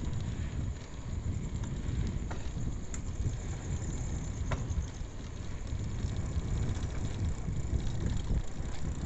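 Bicycle riding along a road: wind buffeting the microphone and road rumble make a steady low rumble, with a couple of light clicks from the bike about three and four and a half seconds in.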